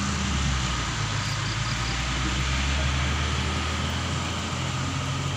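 Heavy diesel engine of a Pertamina fuel tanker truck running steadily under load as it climbs a steep hill, a deep continuous drone.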